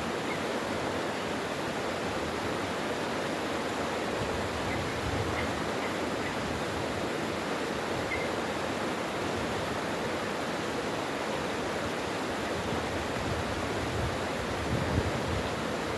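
Mountain valley stream, water rushing steadily over rocks.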